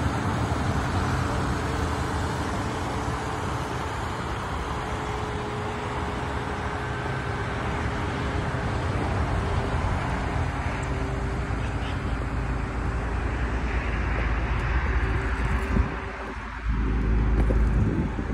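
Steady outdoor road-traffic noise. A low wind rumble on the microphone comes in near the end.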